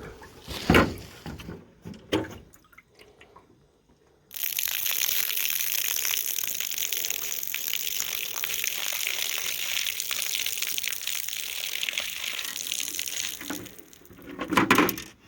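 Water from a dehumidifier's collection bucket being poured out in a steady stream for about nine seconds, after a couple of knocks as the bucket is handled.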